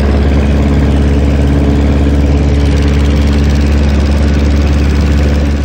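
Light aircraft piston engine running at a steady, unchanging pitch, loud and close.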